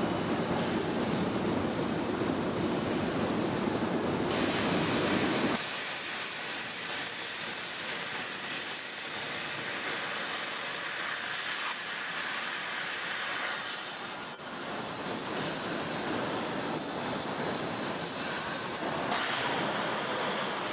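Steady rumbling machinery noise of a steel rolling mill's roller table, which gives way about five seconds in to the steady hiss of an oxy-fuel cutting torch cutting through a hot steel billet.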